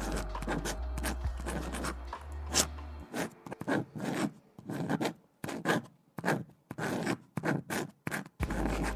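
Writing on paper: short scratchy strokes about two a second. Lo-fi music plays under it at first, drops out about three seconds in, and comes back near the end.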